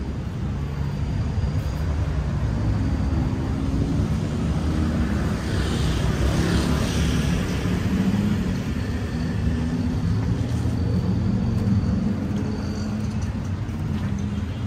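Engines running with a steady low hum, and a hiss that swells and fades about six to seven seconds in.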